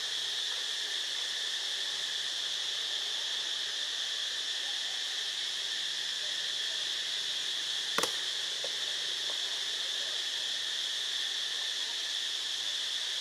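Steady, high-pitched drone of an insect chorus, with a single sharp click about eight seconds in.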